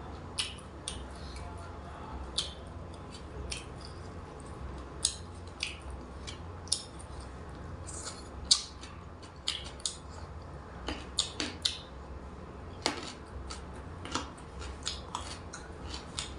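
Close-up eating sounds of papaya salad and raw vegetables: irregular crisp clicks and crunches of chewing, sometimes several a second. A steady low hum runs underneath.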